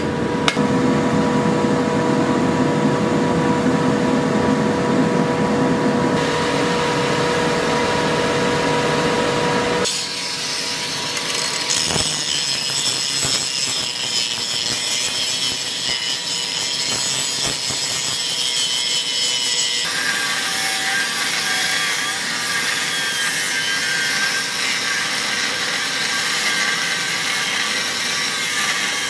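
Electric power tool working steel, a steady grinding noise with a motor hum; the sound changes abruptly about ten and twenty seconds in.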